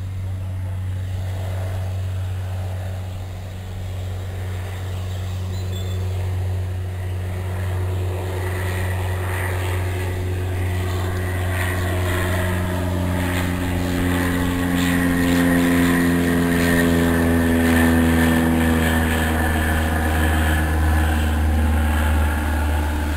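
A steady low engine drone, joined partway through by a second engine note that grows louder and slides slowly down in pitch, then fades near the end.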